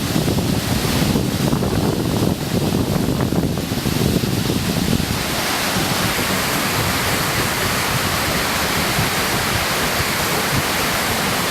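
Waterfall pouring, a steady rush of water close by, with wind buffeting the microphone in gusts during the first few seconds.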